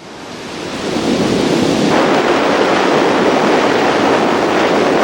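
Steady roar of rushing water, fading in over the first second and then holding even.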